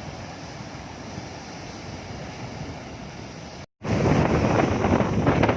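Ocean waves breaking below a sea cliff, with wind rushing on the microphone. About two-thirds of the way through, the sound cuts out for a moment and comes back much louder and rougher.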